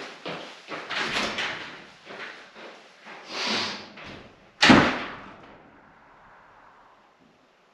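Irregular knocks and clatter, then a door banging shut once, loudly, about four and a half seconds in.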